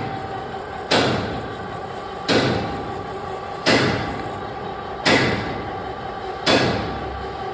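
Heavy thuds repeating evenly, about one every second and a half, each ringing out briefly, over a steady hum.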